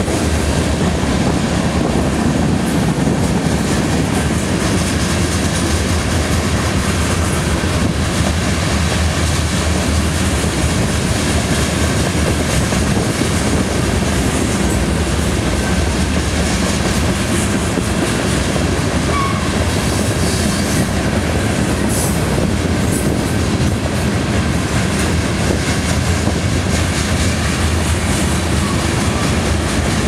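Freight train of tank cars and covered hoppers rolling past at close range: a steady, loud rumble of steel wheels on the rails with clickety-clack over the rail joints.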